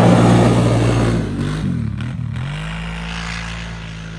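Kawasaki Brute Force ATV engine running hard at high revs. About a second and a half in the sound breaks off, then the engine revs up again and holds, growing fainter as the machine pulls away.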